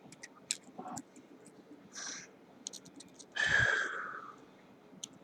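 Small, sharp metal clicks and ticks of tools working on a padlock's lock cylinder, prying at its retainer clip. There is a short airy hiss about two seconds in, and a louder rasping sound about three and a half seconds in.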